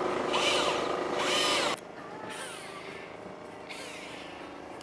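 Shimano Force Master 800 electric fishing reel's motor whirring in its automatic jigging mode, its pitch rising and falling with each pull. About two seconds in, it drops suddenly to a much fainter sound.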